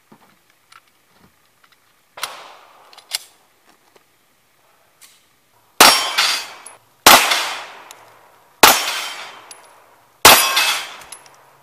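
Pistol shots at steel knock-down targets: four loud shots about a second and a half apart, each followed by a clang and ringing as a steel silhouette plate is hit and knocked over. Two quieter sharp knocks come a couple of seconds in, before the shooting starts.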